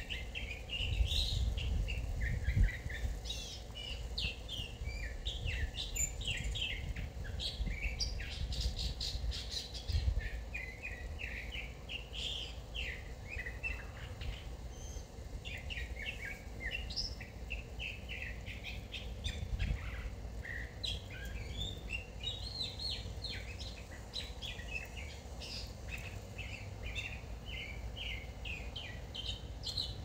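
Several songbirds chirping and trilling in woodland, short calls overlapping all the way through, over a low rumble that comes and goes.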